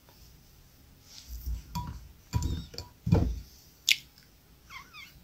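Glass of iced drink being handled and raised to drink through a straw: soft bumps and rustles, then a sharp clink at about four seconds, and a short wavering squeak near the end.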